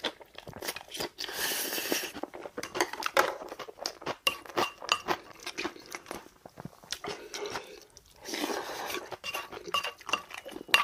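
Close-up eating sounds: wet chewing and crunching of a mouthful of kimchi and rice, in two spells. In between come a wooden spoon's light clinks and scrapes against a ceramic rice bowl as the rice is stirred and scooped.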